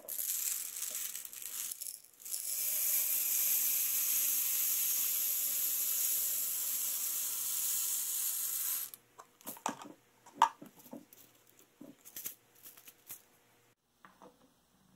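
Small grey pellets poured from a plastic tub into a tube to fill a clock's drive weight: a steady hissing rush of pellets for about nine seconds, with a short break near the start. This is followed by a few seconds of scattered clicks and taps as the filled tube is handled.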